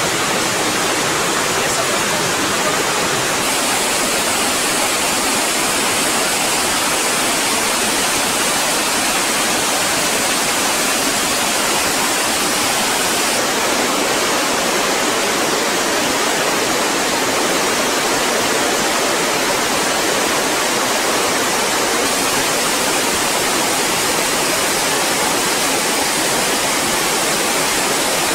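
Loud, steady rushing of a swollen glacial meltwater river, whitewater churning over boulders.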